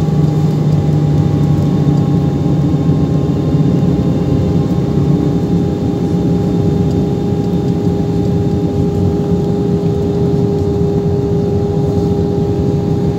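Steady cabin noise inside an Airbus A320 on approach: jet engine drone and airflow rush heard from a window seat over the wing, with a constant low hum and a steady higher tone.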